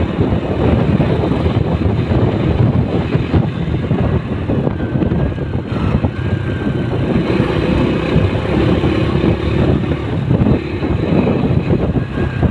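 Wind buffeting the microphone over the steady rumble of a moving vehicle on the road, with passing traffic.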